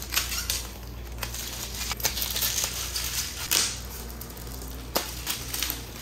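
The framed glass side panel of a Lian Li Q58 PC case being handled and fitted against the case's metal frame: scattered light clicks and taps, a handful over a few seconds. A steady low hum runs underneath.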